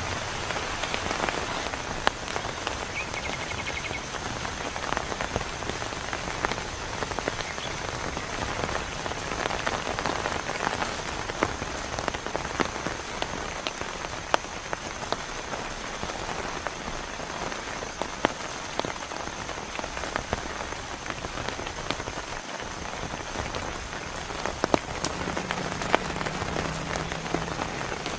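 Heavy rain falling steadily, with frequent sharp ticks of individual drops striking a surface close by.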